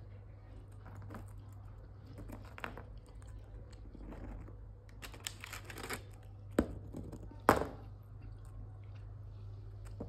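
Rose-ringed parakeet biting and crunching biscuits with its beak: small irregular cracks and taps, with two sharper snaps about six and a half and seven and a half seconds in.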